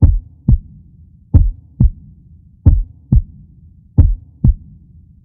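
Heartbeat sound effect: slow, deep lub-dub double thumps, four of them about 1.3 seconds apart, over a faint low drone.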